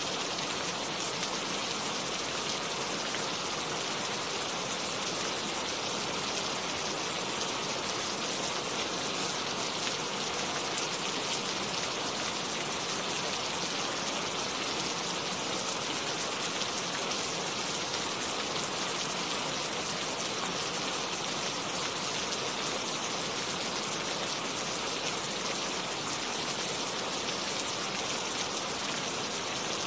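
Steady rain falling, an even wash of drops with no thunder.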